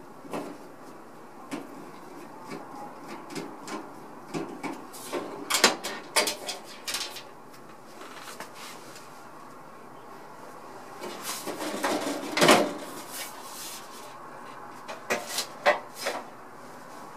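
Screws being undone at the bottom of a Dainichi fan heater, then its front panel worked loose and lifted off. Scattered clicks and knocks, a cluster of sharp knocks about five to seven seconds in, and a longer loud scraping rattle around twelve seconds in as the panel comes away.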